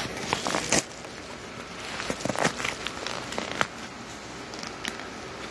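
A yellow padded mailer envelope being handled and worked open by hand, crinkling and crackling in two bursts of sharp crackles, the first under a second in and the second from about two seconds in.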